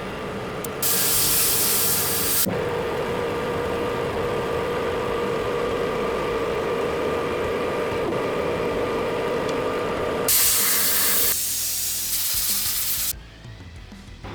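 Metal lathe running with a steady machine hum, broken twice by a few seconds of loud hissing spray. The hum and hiss stop shortly before the end.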